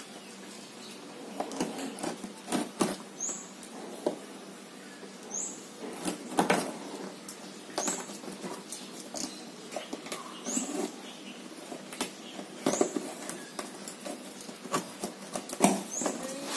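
A pen point scraping and poking along the packing tape of a cardboard box to slit it open, irregular scratches and taps. Near the end a louder tearing of cardboard as a flap is pulled open.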